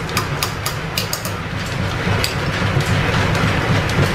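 Flat-belt-driven 1925 American 18-inch lathe running under power while a long hole is drilled, with a steady low rhythmic clatter from its belt and gearing. A quick run of sharp metallic clicks comes in the first second and a half.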